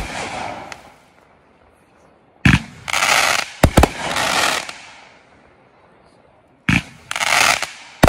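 A 21-shot consumer firework cake firing aerial shells in volleys. Twice, a sharp launch thump is followed by the shells bursting with crackling and a few sharp cracks, which fade within about two seconds. The crackle of the previous volley is dying away at the start.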